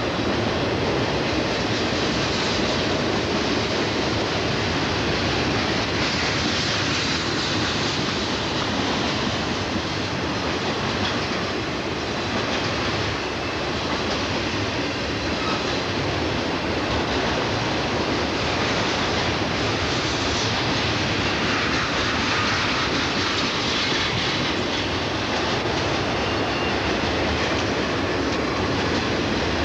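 Intermodal freight train of highway trailers on flatcars rolling past, a steady noise of steel wheels running on the rails.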